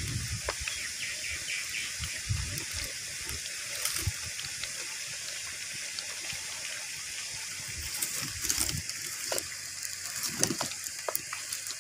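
Potato slices deep-frying in hot oil in an iron kadai: a steady high sizzling hiss with occasional faint crackles.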